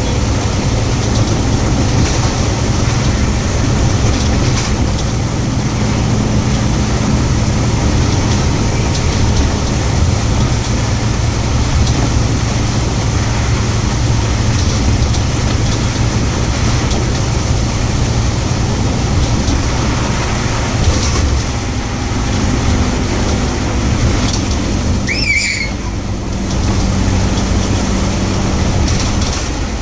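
Scania OmniCity single-deck bus heard from inside the passenger cabin while under way: a steady diesel engine drone with road noise, the engine note changing about two-thirds of the way through. A brief high squeal near the end.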